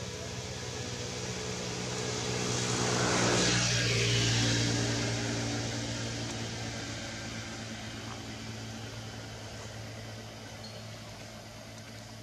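A motor vehicle passing: a steady engine hum throughout, with road and engine noise swelling to a peak about three to four seconds in and then fading slowly.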